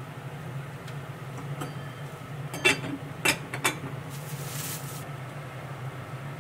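A pot lid clinking three times against the rim as it is set onto a white pot on the stove, followed by a brief hiss, over a steady low hum.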